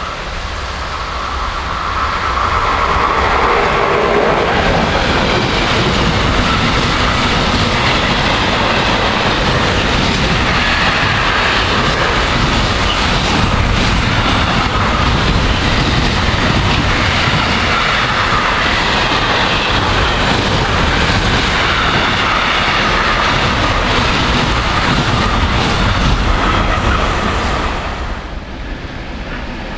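A train passing close by on electrified main-line track: a steady loud rumble of wheels on rails that builds over the first few seconds and falls away near the end.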